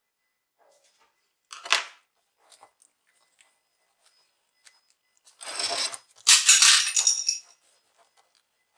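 Handling noise from work on a laptop display assembly: a brief clatter about one and a half seconds in, then a longer, louder spell of clatter and scraping from about five seconds in, with a few faint ticks between.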